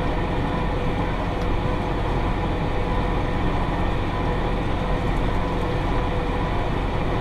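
Massey Ferguson 5610 tractor's diesel engine running steadily under load while pulling a John Deere 468 round baler at speed, a constant hum with a steady whine.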